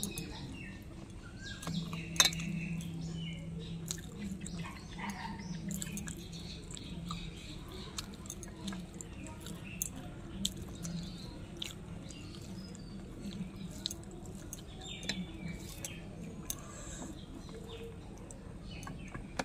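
Close-up eating sounds: chewing and mouth smacking, with scattered short clicks as fingers mix rice on a steel plate. Birds chirp faintly in the background.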